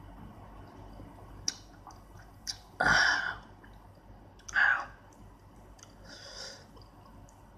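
A man's sharp breaths, two loud ones about three and four and a half seconds in and a fainter one later, with a few small mouth clicks: his reaction to the sourness of lime juice squeezed straight into his mouth.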